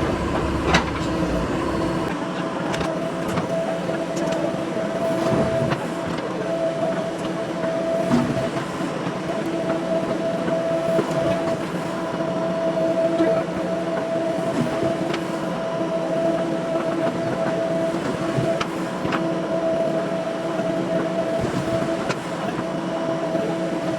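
JCB backhoe loader's diesel engine running steadily under load, with a steady whine and scattered clanks.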